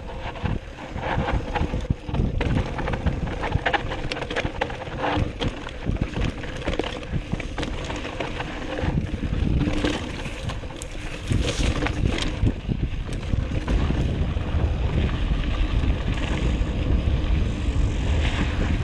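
Mountain bike descending a dry dirt trail, its tyres rolling over dirt and the bike clattering with many short knocks over the bumps. Wind buffets the camera microphone, rumbling more heavily in the second half.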